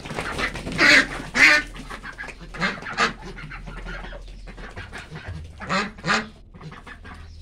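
A flock of white Pekin ducks quacking, with loud harsh quacks in quick pairs about a second in, about three seconds in and about six seconds in, over steady fainter quacking from the rest of the flock.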